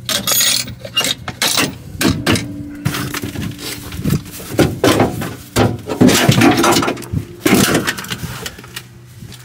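Irregular clattering, scraping and knocking of hard objects being handled, loudest about six seconds in, over a faint steady low hum.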